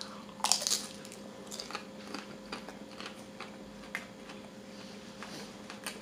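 Biting into a crispy fried taquito: one loud crunch about half a second in, then close-up chewing with scattered small crunches.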